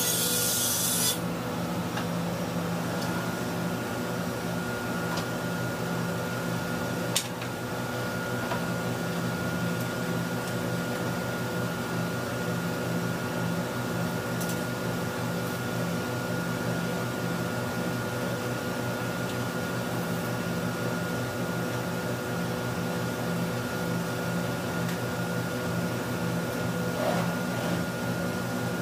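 Steady machine hum of a motor running without load, with soft rubbing as a laminated panel is slid across a steel saw table. There is a short hiss at the very start and a single sharp click about seven seconds in.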